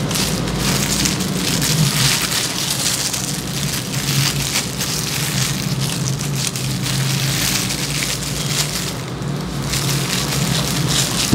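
Continuous crackling rustle of disposable plastic gloves and perm end papers being handled close by while hair is wound onto perm rods, with a low hum underneath.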